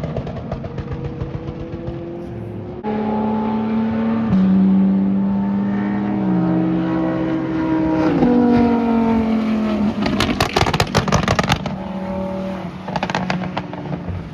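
Car engines running at speed on a race track, their pitch holding and then stepping up and down with gear changes. The sound changes abruptly twice. About two-thirds of the way through comes a burst of rapid sharp cracks, with a shorter burst near the end.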